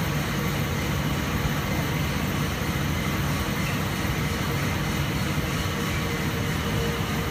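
Rotogravure printing line running: a steady mechanical noise with a low hum underneath, unchanging throughout.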